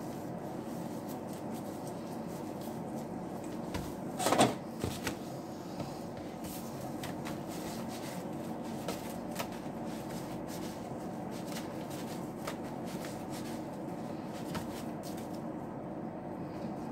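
Sushi-rolling handling sounds: gloved hands working rice rolls and a bamboo rolling mat on a plastic cutting board, with soft clicks and rustles over a steady kitchen hum. A louder clatter of a few quick knocks comes about four seconds in.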